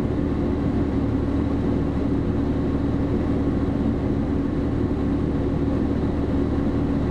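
Fire engine's diesel engine running steadily at the scene, heard from inside the cab as an even low drone with a constant hum.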